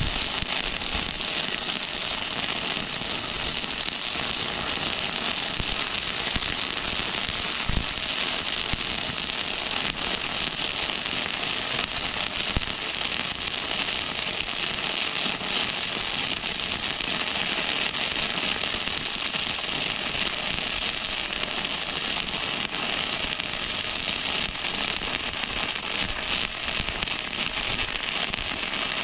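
Flux-core arc welding: the arc of a Harbor Freight Titanium 125 flux welder crackling steadily while a slow bead is run along a seam.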